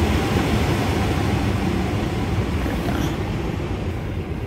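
Steady rush of a car's ventilation fan blowing hard, over a low rumble. It dies down near the end as it is turned down.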